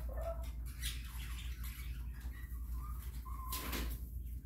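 Chickens clucking softly, with scattered short chirps, and a brief noisy rustle about three and a half seconds in. A steady low hum runs underneath.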